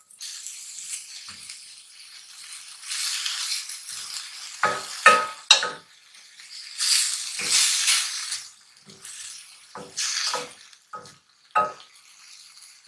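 Diced apple sautéing in ghee and sugar in a stainless steel pan, sizzling in swells that come and go. A wooden spatula stirs it, knocking and scraping against the pan about eight times.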